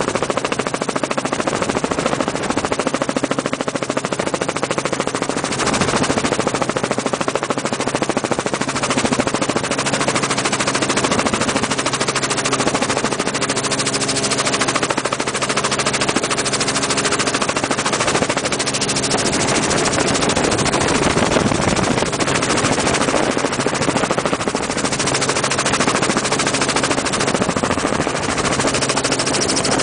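Helicopter in flight heard from inside the cabin: a fast, steady rotor chop over a constant engine drone.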